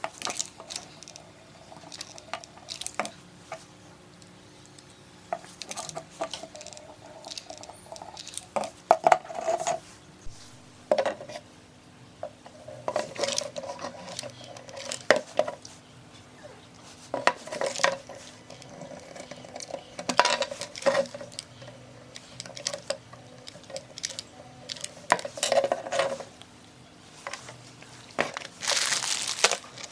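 Tools and small metal parts clinking and knocking in an irregular run of separate sharp strikes, some with a brief ringing.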